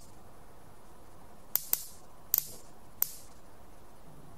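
Spark counter sparking: five sharp, irregular snaps as sparks jump between its high-voltage thin wire and the earthed wire gauze, beginning about a second and a half in. Each spark marks ions made in the air gap by the beta source held above the gauze.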